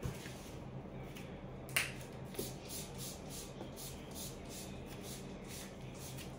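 Air freshener being sprayed in a quick series of short hissing puffs, about three a second, beginning with a louder hiss about two seconds in.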